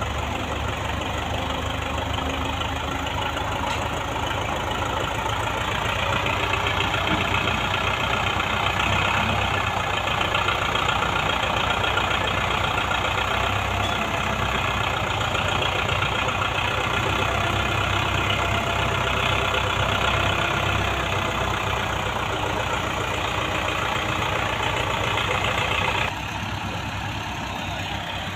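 Russian tractor's diesel engine running steadily under heavy load as it pulls a fully loaded sugar cane trolley, with a fast even engine beat. It grows a little louder about a quarter of the way in, then drops suddenly near the end.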